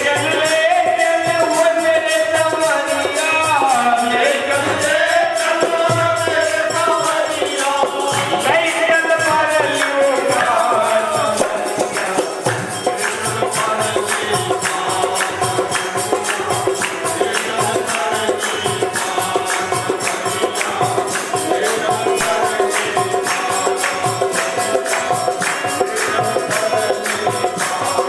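Himachali devotional bhajan kirtan music: a sung melody over fast jingling percussion and drum. The singing drops out about ten seconds in, leaving the instruments playing a quick, steady beat.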